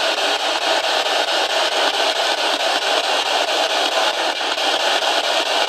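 P-SB11 spirit box sweeping through radio stations, giving out a steady hiss of static with a fast, even flicker as it steps from frequency to frequency.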